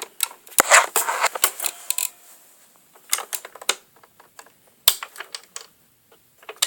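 Handling noise as a phone is set in place and small objects are moved: an irregular run of clicks, taps and rubbing, densest about a second in, with one sharp knock about five seconds in.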